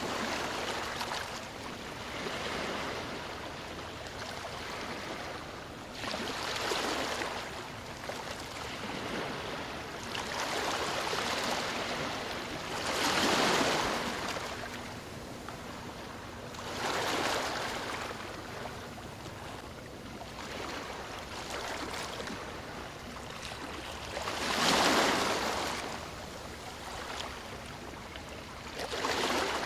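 Ocean waves breaking and washing up the shore, a steady wash of surf that swells every few seconds. The loudest waves come about a third of the way in and again near the end.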